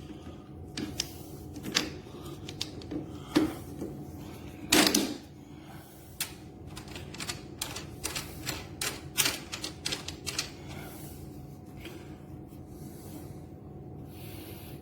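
Irregular clicks and knocks of lawn mower parts being handled and fitted together during assembly. There is a dense run of rapid clicks about six to ten seconds in, with single louder knocks earlier.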